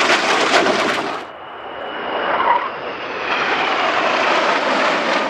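Jet noise from Northrop F-5E Tiger II fighters, each powered by twin General Electric J85 turbojets, flying past. A loud, rough roar cuts off about a second in and gives way to a quieter jet roar with a high whine, which swells as the four-ship formation passes.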